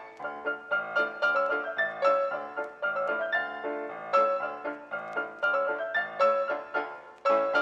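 Background music: a piano playing a run of quick single notes and chords, each struck and fading.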